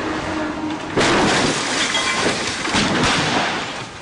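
A dump truck crashing at speed into a roadside barrier wall. The truck's engine runs until about a second in, then a sudden loud crash follows, with about three seconds of smashing and breaking noise that surges again near the end before dying away.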